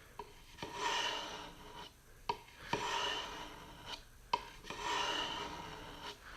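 Kershaw 3410 knife blade drawn along a sharpening stone in three slow, even strokes about two seconds apart. Each stroke starts with a light click as the edge meets the stone, then scrapes as the edge is sharpened.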